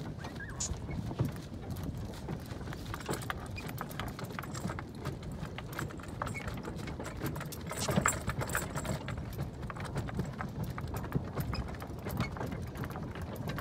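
Hooves of a heavy draft mare clopping on a dried dirt track as she pulls a wooden cart, with the cart's wheels and harness rattling and knocking under a steady rumble. A sharper knock stands out about eight seconds in.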